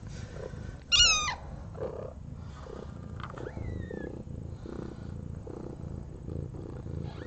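A mother cat purring steadily just after giving birth, with one loud, high, falling mew about a second in and a faint thin squeak near four seconds.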